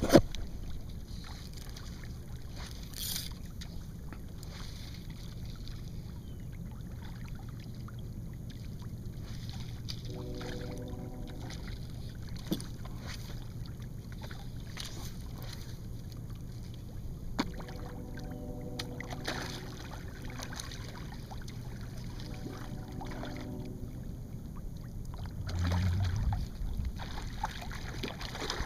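Water lapping around a kayak's hull in wind, with a few sharp knocks. Three short buzzing tones come about ten, eighteen and twenty-three seconds in, and there is heavier low rumbling near the end.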